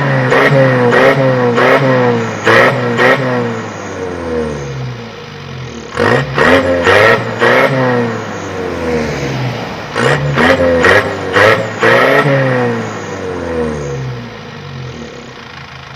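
Isuzu TFR pickup's engine and exhaust, fitted with a split 'Mitsu' resonator muffler, being revved in three bursts of quick throttle blips. Between bursts and near the end it drops back to idle.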